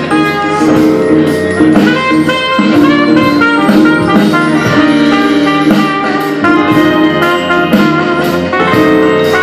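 Jazzy music with horns over a steady drum beat.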